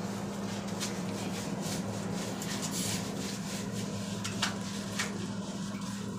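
Soft rubbing and scuffing of a wet cat's fur being scrubbed by hand, with a few faint scratchy ticks, over a steady low hum.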